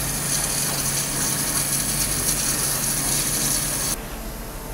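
Flow Mach 3 waterjet cutter's high-pressure jet cutting a tile: a loud, steady hiss that cuts off abruptly about four seconds in.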